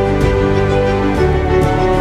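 Background music with sustained chords and a soft, regular beat.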